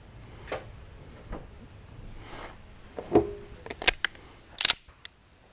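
Sharp metallic clicks and clacks of a firearm being handled as it is loaded and made ready. A few light clicks come early, then a cluster of louder clacks near the end, the loudest a short rattle.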